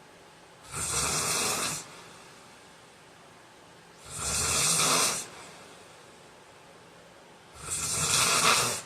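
A man snoring in his sleep: three loud snores, each about a second long, coming roughly every three and a half seconds.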